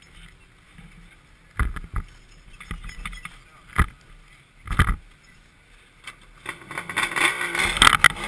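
A few short, sharp knocks over an otherwise quiet stretch, then about six and a half seconds in a snowmobile engine starts running and grows steadily louder toward the end.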